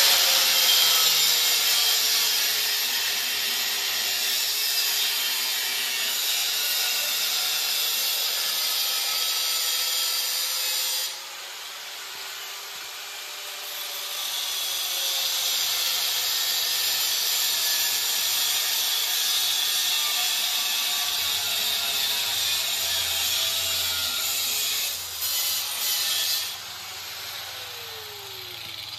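Power grinder grinding a cab mount spacer, its motor pitch sagging and recovering as it bites. It eases off about eleven seconds in, picks back up about three seconds later, and stops near the end.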